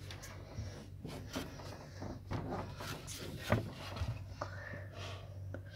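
Scattered knocks, rubs and scrapes against wood as a phone is moved about inside a wooden box, over a steady low hum; the loudest knock comes about halfway through.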